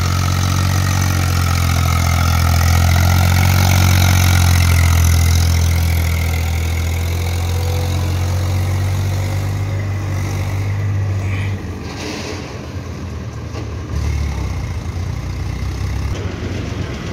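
Diesel engine of an Eicher tractor running under load as it pulls a fully loaded soil trolley, a steady low drone that swells a few seconds in. About twelve seconds in it cuts abruptly to a quieter, rougher engine sound, which grows louder again about two seconds later.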